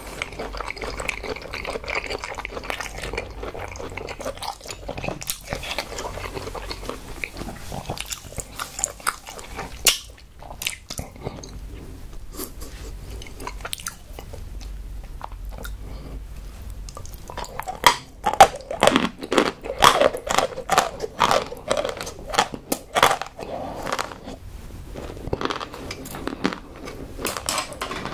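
A person chewing food close to the microphone: soft, steady chewing at first, then a run of sharp, crisp crunches in the second half.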